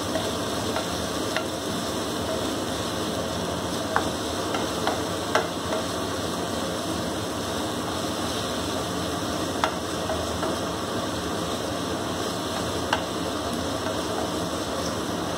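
Chopped onions frying in hot oil in a kadai, a steady sizzle, while a wooden spatula stirs and scrapes them around the pan, giving a few short taps against it.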